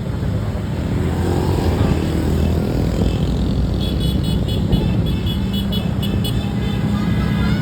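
Motor vehicle engines running with a dense low rumble. A steady low drone holds for the first couple of seconds and another near the end, and a quick run of high, pulsing tones comes in about the middle.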